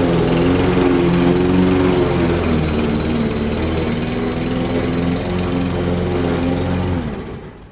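New Toro Personal Pace walk-behind mower's petrol engine running steadily under mowing load, then shut off about seven seconds in, winding down to a stop.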